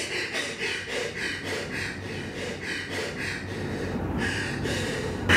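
A young man breathing in quick, frightened gasps, about three short breaths a second.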